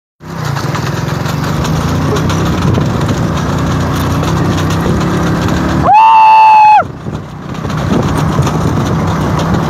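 A motor vehicle's engine runs steadily, mixed with road noise. About six seconds in, a loud horn sounds once for almost a second.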